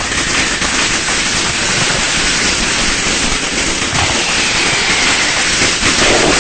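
Many firecrackers going off at once in a dense, unbroken crackle that stays at an even level throughout.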